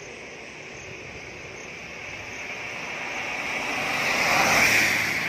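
Car passing close by on a wet road. Its tyre hiss builds to a peak about four and a half seconds in, then fades.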